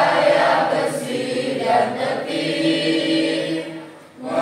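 A class of students singing together in unison, holding long notes, with a brief break about four seconds in before the next phrase begins.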